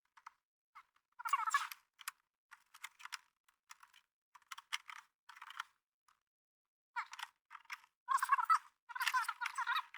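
Hands working plastic dashboard trim and wiring, making irregular crackling, rustling and clicking in short spells. The loudest spells come about a second in and again near the end.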